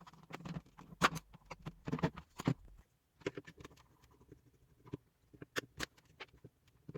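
Irregular light clicks, knocks and scratchy handling noises as a Bionaire tower fan is taken apart to remove its cylindrical blower wheel.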